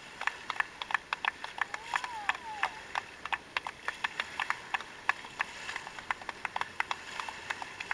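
Dolphins underwater: a steady scatter of sharp clicks, several a second, and one whistle that rises and falls about two seconds in.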